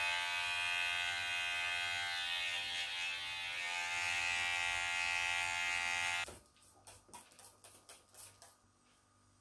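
Cordless electric hair clippers running with a steady buzz as they cut short hair at the nape. They switch off abruptly about six seconds in, leaving a few faint soft clicks and rustles.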